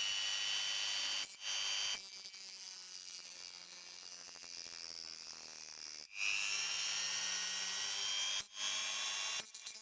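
Small handheld rotary tool spinning a cutting disc against a phone circuit board, cutting notches to free the SIM card reader. It gives a high-pitched whine that cuts out briefly several times, is quieter for a few seconds in the middle, and spins back up with rising pitch about six seconds in.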